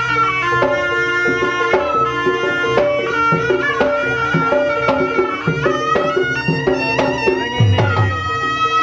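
Javanese kuda kepang accompaniment music: traditional folk percussion with frequent drum strokes and low drum hits under a sustained, held melody line.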